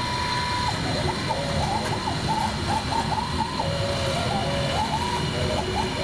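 CNC router carving high-density tooling foam: the stepper motors whine in short rising and falling arcs as the axes speed up and slow down through the 3D toolpath, over the spindle's steady high whine and cutting hiss.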